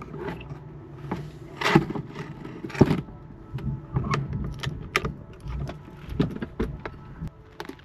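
A string of irregular knocks and clicks, the two loudest about two and three seconds in.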